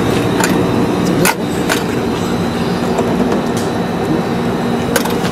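Replica heritage streetcar standing with its onboard equipment giving a steady hum, broken by a few sharp clicks.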